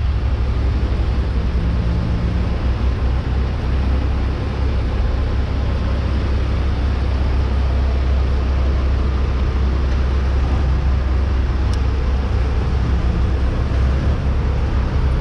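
Vehicle engine idling, a steady low rumble with a faint hiss of traffic over it.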